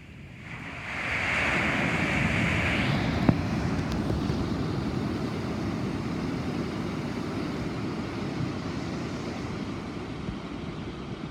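Thunder: a roll that builds quickly about a second in, with a brighter crackling edge at first. It then settles into a deep rumble that slowly dies away.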